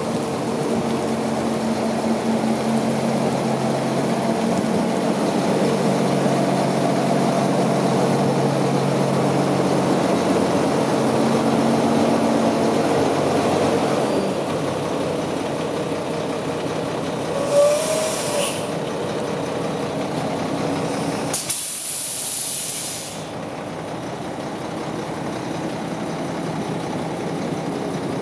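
2005 Mack CV713 packer truck's diesel engine idling steadily, with two short bursts of air hissing out of its air system after the middle, the second louder and longer.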